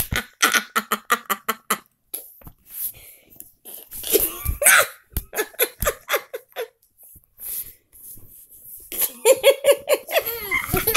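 Breathy laughter in quick pulses: a rapid run at the start, more bursts a few seconds in, and voiced laughing or whimpering near the end.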